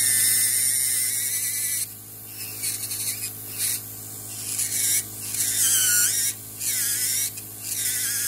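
Podiatry nail drill, an electric rotary handpiece with a burr, grinding down a thick fungal toenail. It gives a high whine in several bursts of a second or two, its pitch sagging as the burr bites into the nail and rising again as it eases off.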